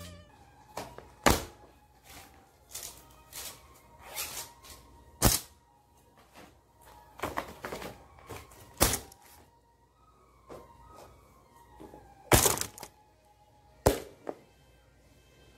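Books and notebooks being set down and stacked on a desk: several separate thuds and knocks, a handful of them loud, with faint music underneath.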